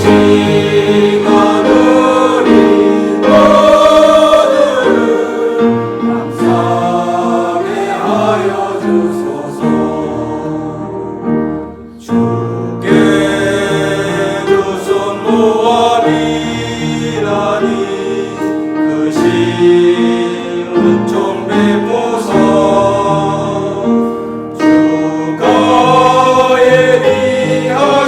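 Church choir singing a hymn, with a short break between phrases about twelve seconds in.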